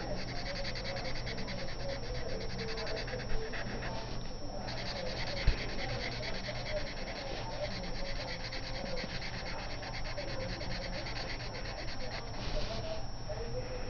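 Black felt-tip marker scratching on paper in quick back-and-forth strokes as it fills in a solid area, with a short pause about four and a half seconds in and a couple of light knocks.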